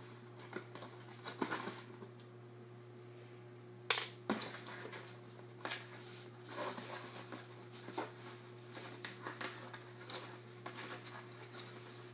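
Handling noise from a cardboard box being worked open: scattered light clicks, taps and scrapes of plastic against cardboard, with one sharp click about four seconds in, over a steady low hum.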